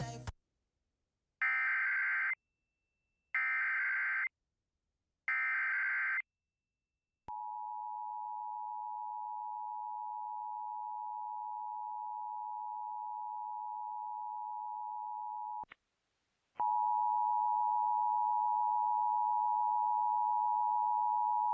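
Emergency Alert System tones from a Sage ENDEC: three short warbling bursts of SAME header data, then the steady two-tone attention signal for about eight seconds. After a brief gap, a louder, harsher steady tone with overtones begins.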